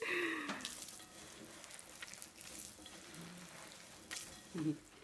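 Faint kitchen handling sounds of mixing buckwheat bread dough in a bowl: soft stirring and scraping with scattered light clicks.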